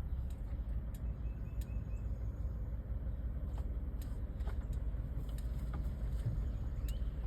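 Steady low outdoor rumble, with a few faint, short high bird chirps over it.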